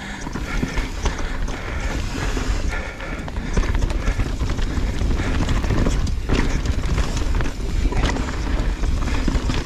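Mountain bike running down a dusty dirt trail: wind rushing over the microphone, tyres crunching on loose dirt, and a steady rattle of small clicks from the bike.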